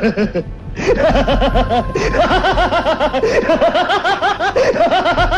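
A person laughing loudly and at length, a rapid unbroken run of repeated 'ha-ha' syllables.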